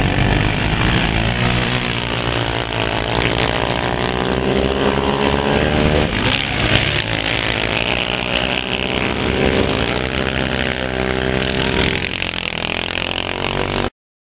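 Racing quad bike (ATV) engines revving hard and easing off as they lap a dirt speedway oval, the pitch rising and falling several times. The sound cuts off suddenly near the end.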